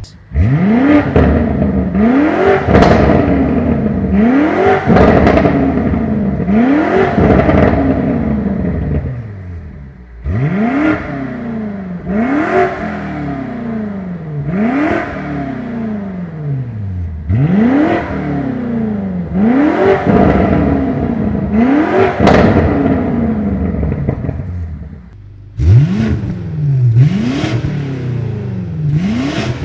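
BMW M5's twin-turbo V8 through a DCE aftermarket exhaust, revved repeatedly while stationary: each blip rises sharply and falls back, about one every two seconds, with two short pauses.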